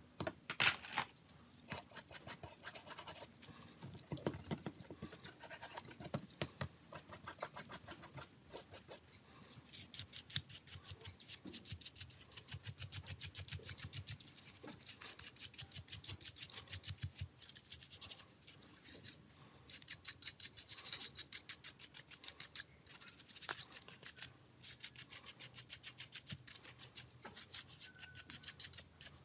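A small stiff-bristled brush scrubbing a mobile phone's circuit board, in rapid back-and-forth strokes that come in bouts with short pauses between them.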